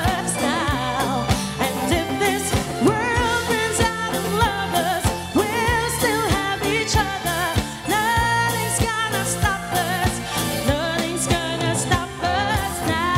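Live pop band performance: a woman sings with vibrato over electric guitar, bass guitar and keyboard, with a steady beat.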